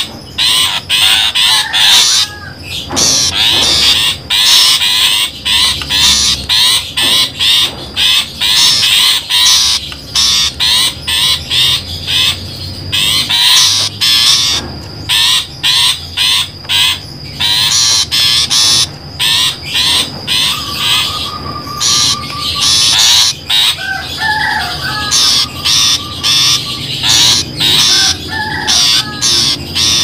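Long-tailed shrike (pentet) calling in rapid, closely repeated notes, one call after another without a break, a bird-trapping lure recording meant to draw in wild shrikes.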